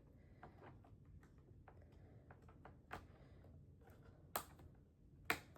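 Faint clicks and taps from handling the parts inside an opened computer, with three sharper clicks about three, four and a half, and five and a half seconds in.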